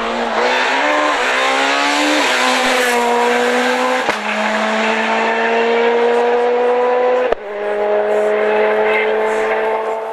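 Peugeot 207 S2000 rally car's two-litre, naturally aspirated four-cylinder engine at full throttle, accelerating away. Its pitch climbs and drops sharply three times as it snaps through quick upshifts.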